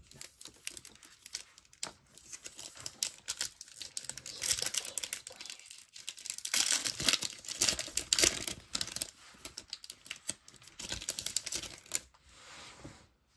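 A trading-card pack's wrapper crinkling and tearing open, with the cards rustling and clicking as they are handled. The crackling is densest through the middle and dies down near the end.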